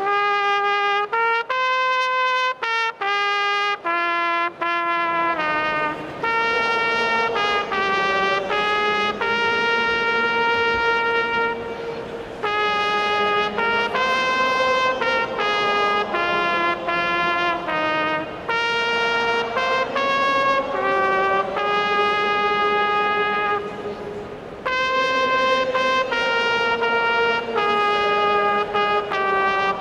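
Brass music led by trumpet, playing a bright melody. It starts suddenly as a single trumpet line, and fuller brass accompaniment joins about five seconds in.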